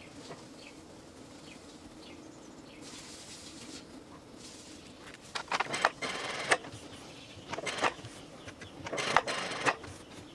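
Domestic sewing machine stitching a bar tack at the base of a V-neck, in several short runs with pauses between them in the second half.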